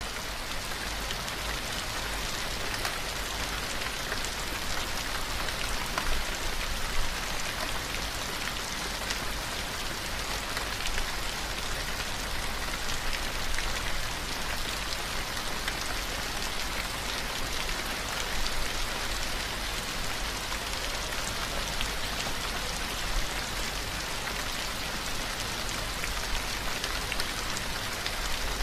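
Steady rainfall, a continuous hiss of rain with many small drop ticks through it, over a steady low rumble.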